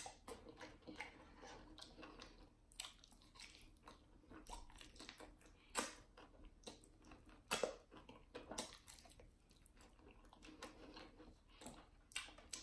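Faint chewing and wet mouth sounds of a person eating a sauced barbecue chicken wing, with a few sharper smacks and clicks scattered through.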